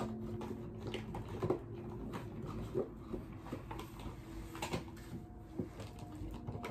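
Quiet rummaging: scattered soft clicks, knocks and rustles of small items being moved about while searching for a makeup product.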